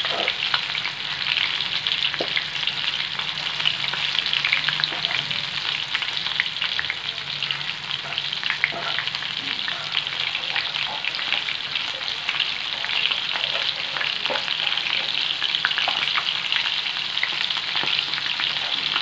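Coated prawns frying in hot oil in a wide pan: a steady sizzle full of small crackles and pops.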